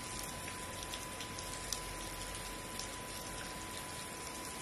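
Steady rain falling, an even patter with a few sharper drop ticks. A faint steady whine sits underneath.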